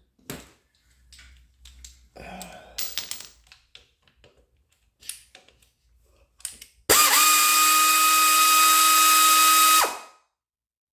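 Light metallic clicks and taps as a socket is worked onto a nut, then about seven seconds in a pneumatic air ratchet runs for about three seconds, a steady whine over hissing air, spinning off a rusted 7/16 nut, and stops suddenly.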